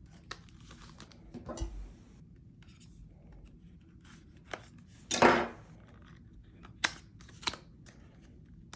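Handling of the laptop stylus's packaging: scattered clicks and plastic and cardboard handling noises, with one short, louder tearing rustle about five seconds in and a few sharp clicks after it, as the stylus is worked at but will not come out.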